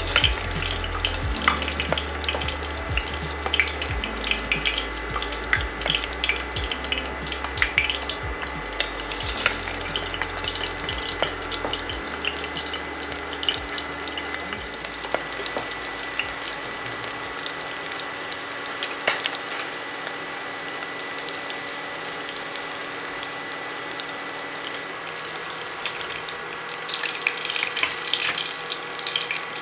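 Breaded stuffed peppers deep-frying in hot oil in a stainless steel pot: a steady sizzle with dense crackling.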